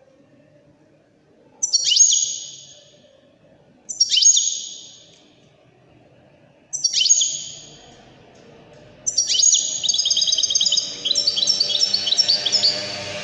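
European goldfinch song: three separate sharp calls, each dropping in pitch and trailing off with an echoing tail, then about two-thirds of the way in a fast, continuous run of rapid high twittering notes.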